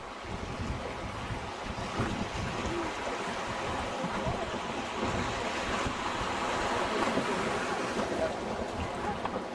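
River water rushing over shallow rapids, a steady wash that swells a little midway, with wind rumbling on the microphone.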